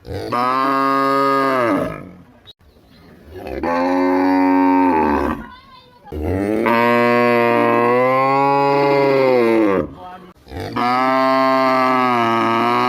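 Cow mooing: four long, loud moos in a row, each rising and then falling in pitch, with short breaths between them.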